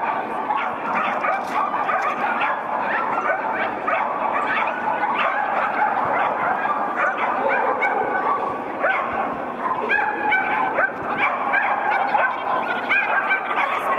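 Dogs barking over and over, many short barks coming several a second and overlapping one another.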